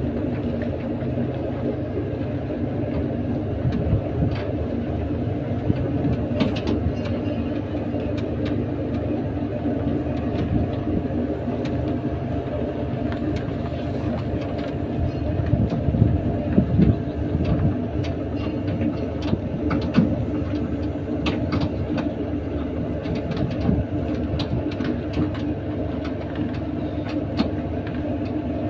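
A vehicle's engine drones steadily as it carries riders along, with rattles and knocks from the ride, heaviest about halfway through.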